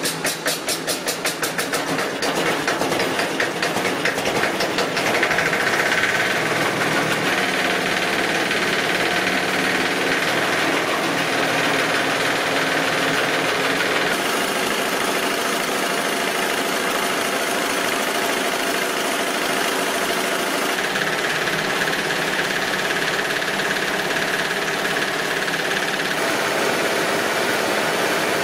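Single-cylinder diesel engine on a crop thresher, turned over by hand with rapid regular knocks, catching in the first couple of seconds and settling into a steady run.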